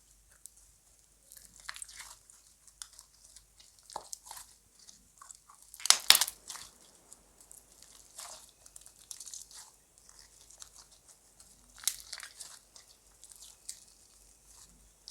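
Slime being mixed and squished: sticky crackles and small clicks, loudest in a burst about six seconds in and again near twelve seconds.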